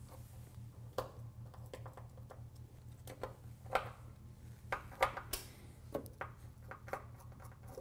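Phillips screwdriver backing out the mounting screws of a safe's keypad base: scattered light clicks and taps of metal and plastic, over a steady low hum.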